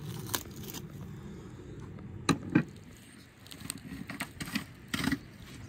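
A whole spit-roasted lamb being handled and pulled apart by hand on a wooden board: crackling of the crisp roasted crust, with two sharp knocks about two seconds in and another near the end.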